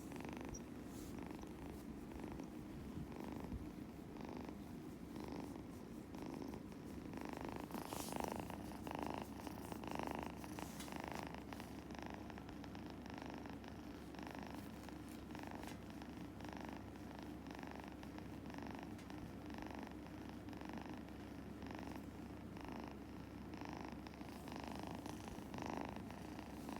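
Scottish Fold kitten purring steadily while being stroked, the purr swelling and falling with each breath about one and a half times a second.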